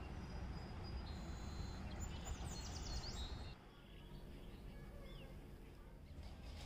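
Faint background ambience: a low steady hum with a few short, high bird chirps. The hum drops away about three and a half seconds in.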